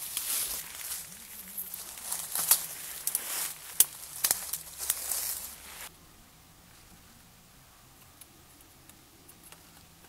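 Dry leaf litter and brush rustling and crackling, with sharp twig snaps, as a person pushes through thick undergrowth. It cuts off suddenly about six seconds in, leaving only faint woodland background.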